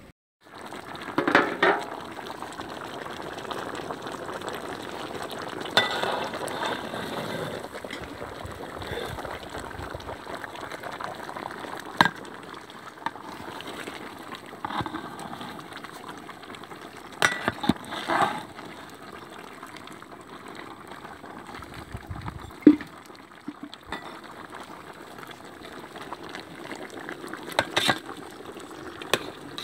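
Chicken and tomato gravy bubbling steadily in a large aluminium pot over a wood fire. Sharp metal clinks of a ladle against the pot come at scattered moments as it is stirred.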